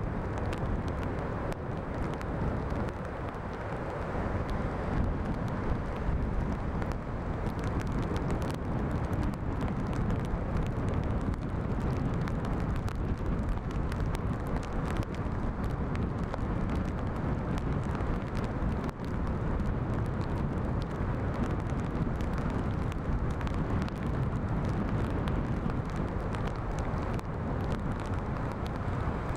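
Steady rush of strong wind on the microphone mixed with the roar of heavy storm surf, with small crackles scattered throughout.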